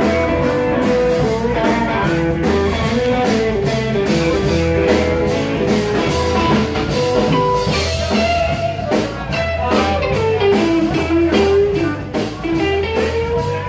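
Live bar band playing an instrumental passage: electric guitar lead with sustained, bending notes over bass and a steady drum-kit beat.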